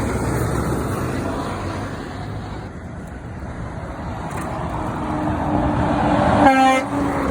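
Road traffic with heavy trucks going by: steady engine and tyre noise that swells as a truck approaches and passes near the end, with a brief pitched tone at its loudest point.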